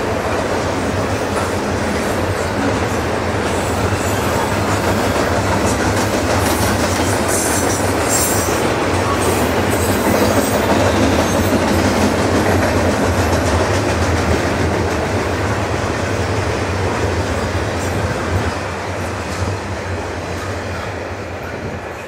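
Double-stack intermodal container freight train rolling past, its wheels clicking over the rails in a steady rumble. It fades in the last few seconds as the final cars go by.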